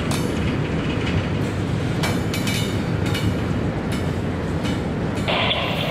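Freight train rolling past: a steady low rumble of the cars with irregular clicks of wheels over the rail joints. A brighter, higher-pitched hiss joins in near the end.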